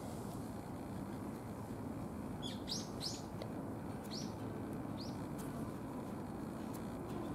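Small bird chirping: a quick run of three short high chirps about two and a half seconds in, then two more single chirps over the next two seconds, over a steady low outdoor background rush.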